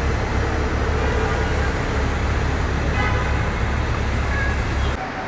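Airport bus engine idling at the curb, a steady low rumble with general outdoor hubbub; it drops off abruptly near the end.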